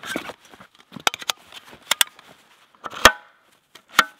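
Metal gear clinking and clacking as a collapsible metal snow shovel is taken from a backpack and put together. It ends in two sharp metallic knocks, about three and four seconds in, that ring briefly.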